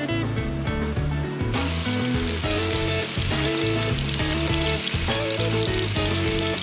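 Food frying, a steady sizzle that starts about a second and a half in, over background guitar music.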